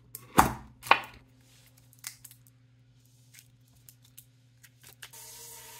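Metal putty tin being opened: two loud scraping clacks of the tin lid about half a second apart, then a few light clicks as the tin is handled. A steady hiss with a faint hum comes in near the end.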